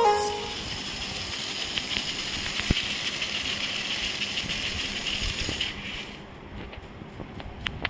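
Small DC gear motors of a hobby robot running with a steady buzzing whine, cutting out about six seconds in, followed by a few faint ticks.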